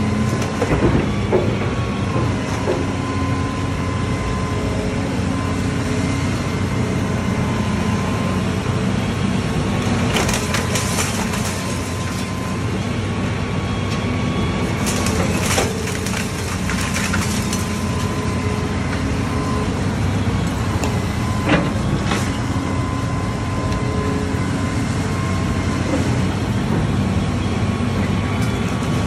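Hitachi excavator's diesel engine running steadily with a thin whine, while its arm tears into a house: bursts of crunching and splintering wood come about ten seconds in and again around fifteen seconds, with a sharp crack a little past twenty seconds.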